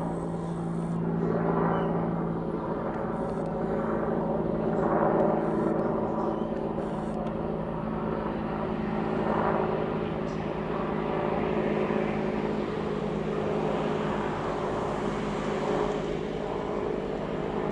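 Twin-turbine Bell 412 helicopter flying overhead: the steady drone of its engines and rotors, with constant low tones under a rushing noise that swells and eases a few times.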